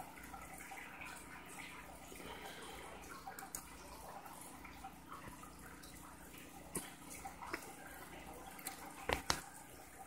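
Quiet room tone: a steady low hum and hiss, broken by a few sharp clicks in the second half, the loudest two close together near the end.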